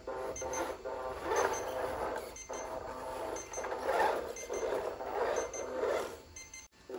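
Small electric motor of a toy RC Range Rover Sport whining as it drives through loose sand, with surges of tyres churning the sand. A short high double beep repeats about once a second.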